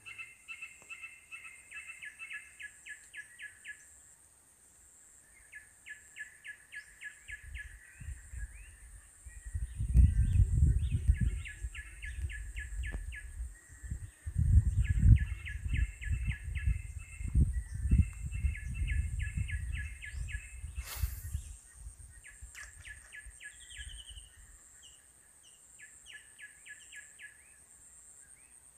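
Rapid rhythmic animal chirping, quick pulses in runs of a second or two, repeating with short gaps, over a steady high-pitched whine. A low rumble swells up about a third of the way in, comes and goes, and dies away about three quarters through; it is the loudest sound.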